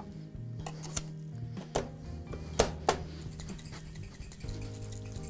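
Glass and metal clinking a few times, about four sharp clicks, as a glass jam jar with a metal screw lid and bar tools are handled. Quiet background music plays underneath.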